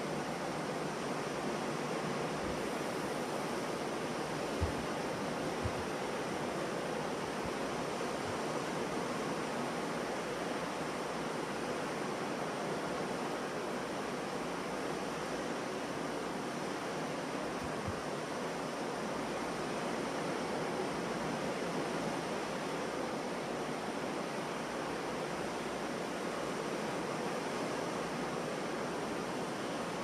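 Ocean surf breaking and washing on a beach: a steady, even wash of noise with little rise and fall. A couple of brief low thumps come about five seconds in.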